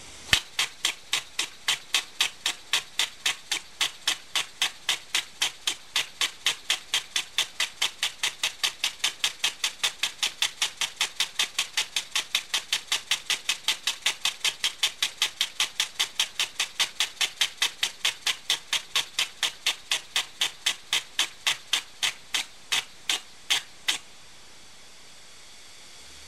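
Homemade poppet valve model engine set up with a two-lobe cam to fire every second stroke, running on compressed air: an even train of sharp exhaust puffs, about three a second. The puffs space out slightly near the end and stop about 24 seconds in, leaving a faint steady hiss.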